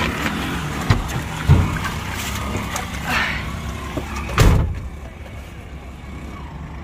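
4x4 motorhome driving through flood water, heard inside the cab: a steady rumble with several sharp knocks and thumps, the loudest about four and a half seconds in. After that it goes quieter.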